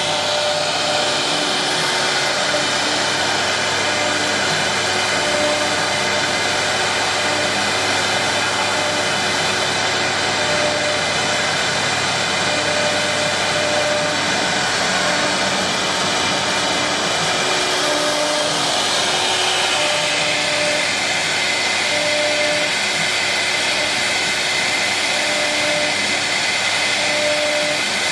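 Wood CNC router running: a steady machine whir, with short humming tones that come and go every second or two.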